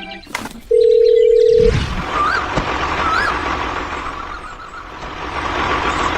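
A single steady electronic beep lasting about a second, followed by a low thud and a steady rushing noise with two short chirps in it, growing louder near the end.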